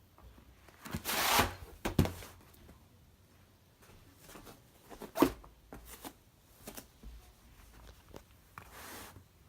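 A yoga mat being handled and set down on the floor in a small room: a short rustle about a second in, a thump, a sharp knock a little after five seconds, small handling clicks, and another soft rustle near the end.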